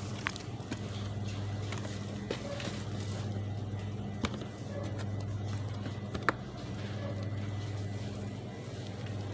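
Shop background: a steady low hum with a few light clicks and knocks scattered over it, the sharpest about six seconds in.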